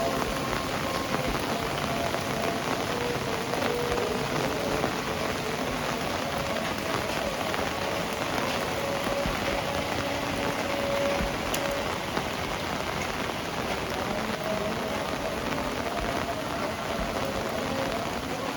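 Heavy rain falling and splashing on surfaces: a steady, dense hiss, with a faint hum drifting in and out beneath it.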